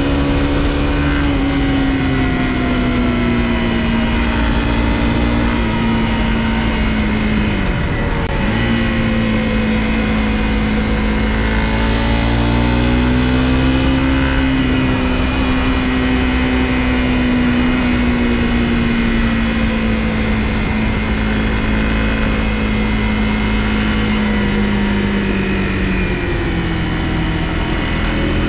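Honda CRF250L's single-cylinder engine running under way, its pitch slowly rising and falling with the throttle. It drops sharply about eight seconds in, picks up again, and sags near the end.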